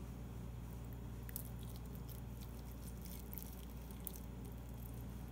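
Faint wet squishing and small ticks of marinated beef strips being pushed onto a bamboo skewer by hand, over a steady low hum.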